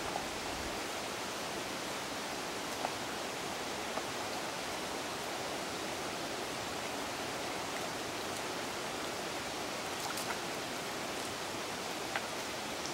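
Shallow creek running over stones: a steady wash of moving water, with a few faint small clicks scattered through it.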